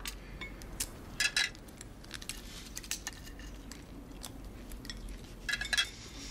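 Cutlery clinking and scraping on dinner plates as people eat, scattered light clicks with a louder cluster of clinks about a second in and another near the end.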